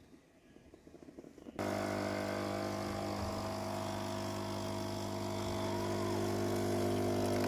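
Espresso machine's pump switching on about a second and a half in and running with a steady hum as a shot is pulled.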